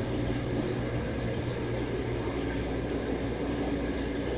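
Aquarium air system running: steady bubbling and churning water from airlines feeding the tanks, over a low steady hum.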